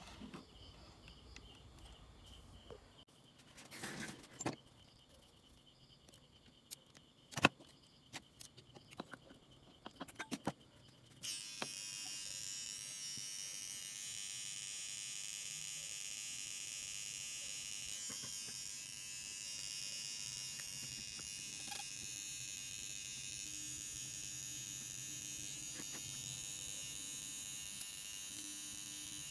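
Scattered light clicks and taps of parts and wires being handled, then a steady high electrical buzz with hiss that starts abruptly about eleven seconds in.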